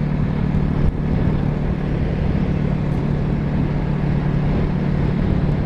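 Motorcycle engine running at a steady pitch while riding, over a constant rush of wind and road noise, with a short knock about a second in.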